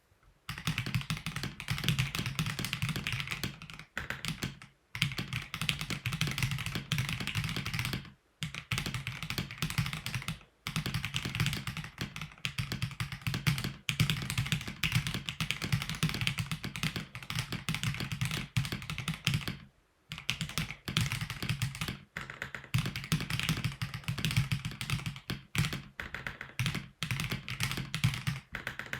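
Stock Akko PC75 mechanical keyboard with Akko CS Crystal linear switches being typed on continuously in rapid keystrokes, with a few brief pauses.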